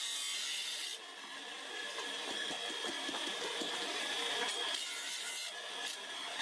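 Bench-grinder motor running with a steady high whine and hiss while a knife's bone handle is worked against its wheel. The sound changes abruptly about a second in and again near the end.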